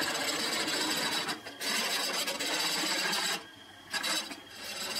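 Step drill bit cutting into metal as it enlarges a drilled hole: a steady rasping scrape with a brief break about a second and a half in, stopping about three and a half seconds in.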